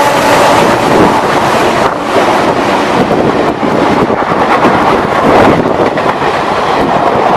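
Express passenger train rushing past at speed close by: a loud roar of wheels and air with rapid wheel clatter and wind buffeting the microphone. The diesel locomotive's horn fades out within the first second.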